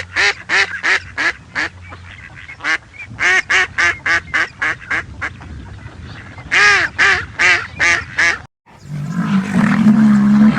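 Geese honking: quick runs of short, repeated honks, several a second. Near the end it cuts to a lower, drawn-out call of another animal.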